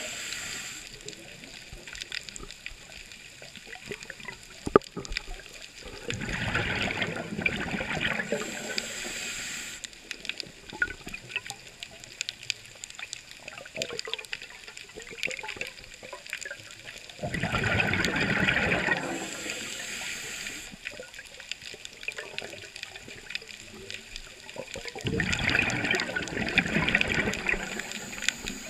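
Scuba diver breathing through a regulator underwater: three slow breaths about ten seconds apart, each a rush of exhaled bubbles with a high hiss of inhalation, over faint steady crackling in the water between breaths.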